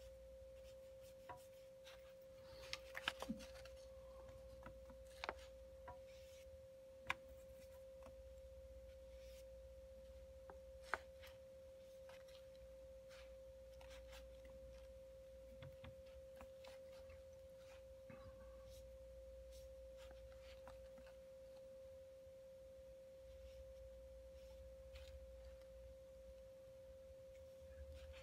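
Near silence: a faint steady whine throughout, with a few soft clicks and rubs from a watercolor brush working paint in a metal palette and on paper.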